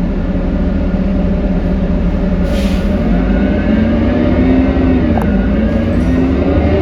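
Diesel drivetrain of a 2018 New Flyer Xcelsior XD40 transit bus, heard from onboard, droning loudly as it pulls along. Its pitch rises, dips once about five seconds in, then climbs again. A brief hiss of air comes about two and a half seconds in.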